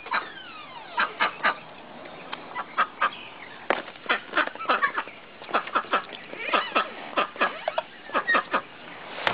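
A domestic duck quacking loudly and repeatedly, short quacks in irregular runs, sometimes two or three in quick succession.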